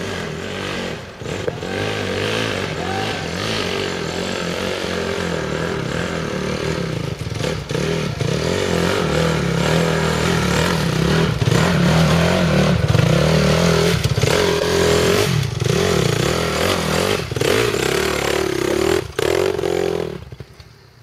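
Dirt bike engine running and revving unevenly as it is ridden slowly down a steep, muddy trail, getting louder as it comes close, with clatter and knocks from the bike over the rough ground. The engine drops away just before the end.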